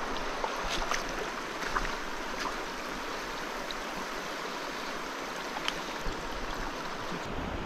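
River water running over a shallow, stony riffle: a steady rushing hiss, with a few faint clicks scattered through it.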